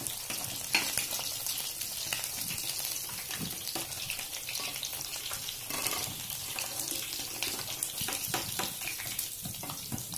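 Cornflour-coated paneer cubes sizzling in hot oil in a frying pan: a steady frying hiss full of small crackles. A sharp knock about a second in, as the browned pieces are lifted out with a spatula.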